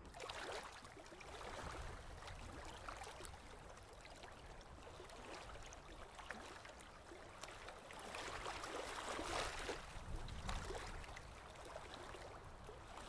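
Small ocean waves washing onto a sandy beach: a soft, even rush that swells and ebbs, loudest about eight to ten seconds in.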